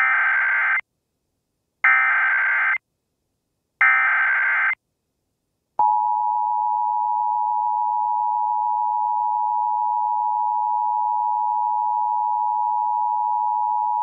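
Emergency Alert System alert: three short bursts of SAME header data, each under a second and about two seconds apart, marking the start of an alert. About six seconds in comes the EAS two-tone attention signal, 853 and 960 Hz sounded together, held steady for about eight seconds.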